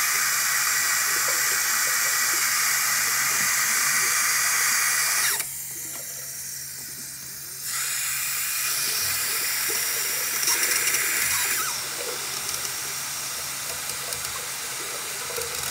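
Bathroom sink faucet running with mixed hot and cold water, a steady hiss of the stream. Its sound drops sharply about five seconds in, comes back about two seconds later, and softens a little past the middle.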